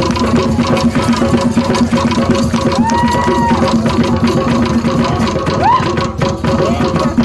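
Traditional Igbo drumming and percussion accompanying a masquerade dance, a fast, dense beat with a steady drone underneath. Short rising high notes cut through three times, about three seconds in, near six seconds and at the end.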